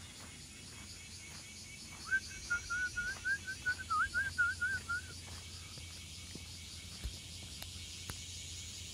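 A bird calling: a quick run of about a dozen short whistled notes, each with a small up-and-down inflection, lasting about three seconds.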